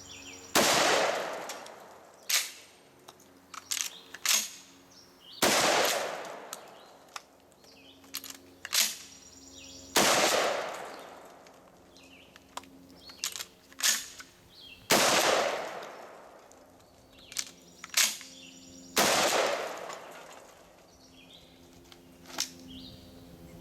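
Five 12-gauge shotgun blasts from a Mossberg 500 Cruiser pump gun with a muzzle brake, about four to five seconds apart, each followed by a long fading echo. Between the shots come shorter clacks of the pump action being worked. The gun is fired until empty.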